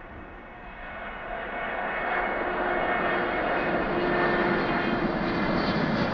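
Boeing 787 airliner's GE turbofan engines at take-off power as it lifts off, the noise swelling over the first two seconds or so and then holding loud and steady.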